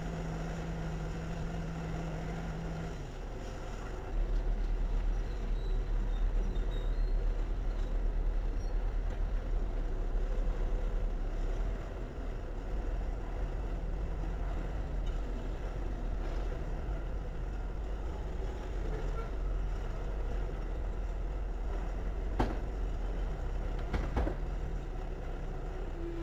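Diesel engines of heavy rerailing equipment running with a steady low rumble that grows louder about four seconds in. Two sharp knocks come near the end.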